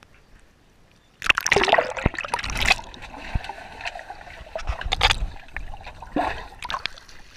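A dog jumping into a swimming pool with a big splash about a second in, then splashing and sloshing water as it paddles.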